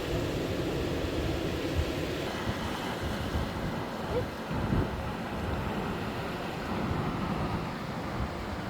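Sea waves washing with wind buffeting the microphone, a steady rushing noise with uneven low gusts.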